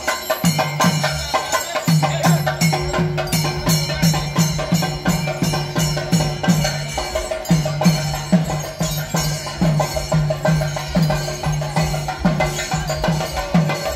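Percussion music: drums beaten in a steady, fast rhythm, deep strokes about twice a second under a dense clatter of sharper stick strokes, with a brief break about seven and a half seconds in.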